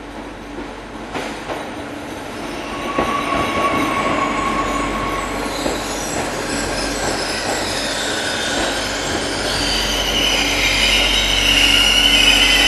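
TER multiple-unit train running into the station and passing close along the platform, its rumble growing steadily louder. About three-quarters of the way in, a high, wavering squeal of the wheels on the rails starts up as it slows.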